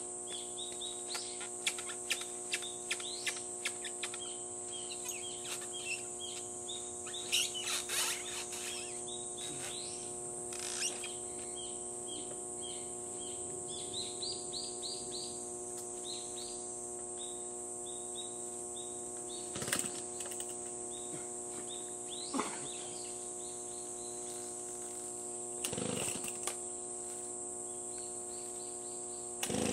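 Small birds chirping and twittering, with one quick run of chirps about halfway through, over a steady high hiss. A few short knocks and rustles break in now and then.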